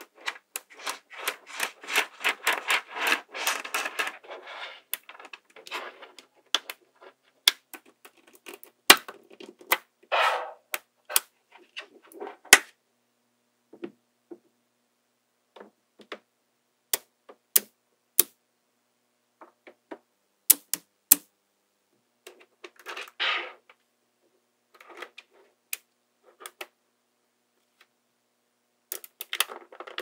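Small magnetic balls clicking and snapping together as fingers roll and press them into chains and rows. A dense run of rapid clicks comes first, then scattered sharp single clicks and short rattling clusters with pauses between.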